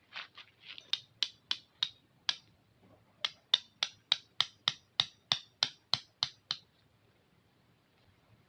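A quick run of short, sharp strikes, about three a second, with a brief pause partway and stopping about two-thirds of the way through.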